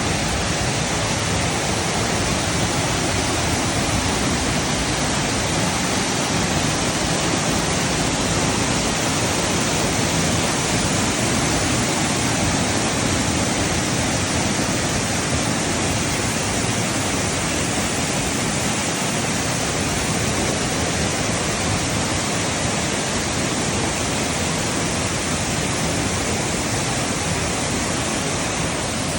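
Water pouring down a man-made waterfall: a steady, loud, unbroken rush.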